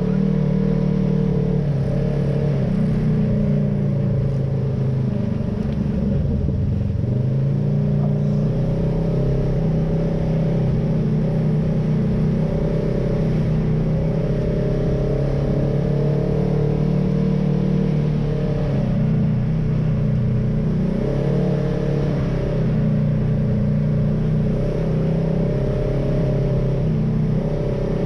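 Polaris RZR side-by-side engine running at low trail speed, heard from inside the cab. Its pitch dips briefly about five seconds in and again around twenty-one seconds as the throttle eases off and picks back up.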